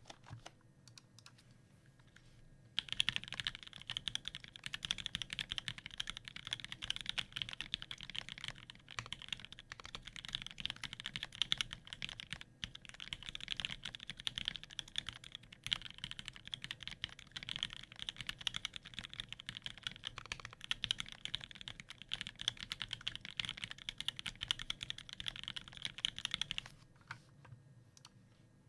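Rapid, continuous typing on a custom Alice-layout mechanical keyboard with an acrylic case, a 5 mm integrated plate, lubed and filmed H1 switches with 78 g springs, and GMK keycaps. A few scattered keystrokes come first, then dense typing from about three seconds in that thins back to scattered presses near the end.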